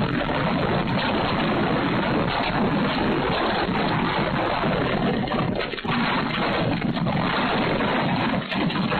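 Strong gusty wind, a loud, steady rushing noise.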